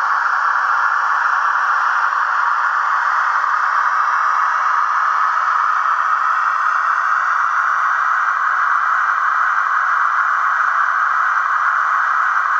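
Trix model of a DB class 140 electric locomotive running, giving a steady, even hiss with no breaks or clicks.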